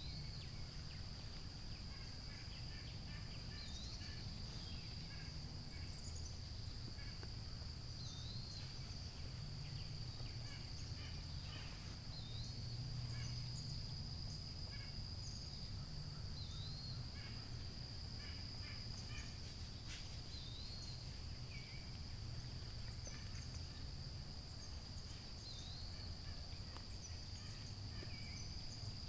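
Outdoor insect chorus holding a steady high-pitched drone, with a bird repeating a short slurred call about every four seconds and a low rumble underneath.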